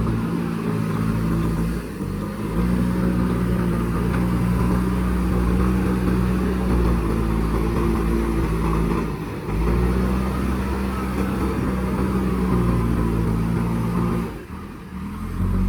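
JCB backhoe loader's diesel engine running hard under load as it works, with a steady deep note that drops off briefly about two seconds in, about nine seconds in and near the end before picking up again.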